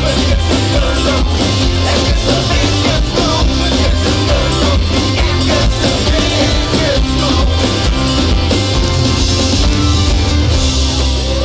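Live rock band playing loudly on stage: drum kit beating steadily under electric guitar and bass, with a singer on the microphone, heard through the crowd.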